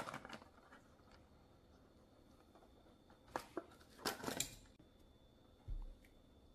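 Quiet handling of a die-cast toy car and small tools: a few short clicks and scrapes about three and four seconds in, and a brief low thump near the end.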